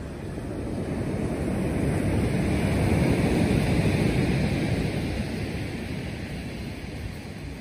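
Surf breaking and washing up a shingle beach, swelling to a peak about three seconds in and easing off again, with wind buffeting the microphone.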